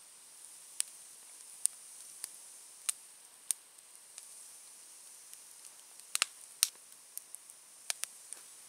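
Small smoky wood fire crackling: sharp, irregular snaps and pops, several close together about six seconds in, over a faint steady hiss.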